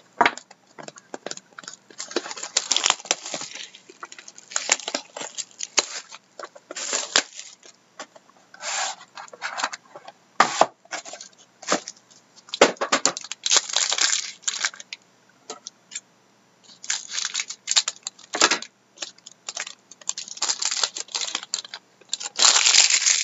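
A sealed hockey trading-card box being opened by hand: shrink-wrap and packaging torn and crinkled, cardboard flaps rubbed and snapped, in irregular rustles and sharp clicks with a brief pause about two-thirds of the way through.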